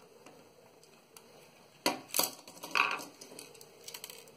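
Sharp plastic clicks and a crackle, about two seconds in and a few more near the end, as a Logitech wireless mouse's plastic shell is pried apart by hand and its halves come free.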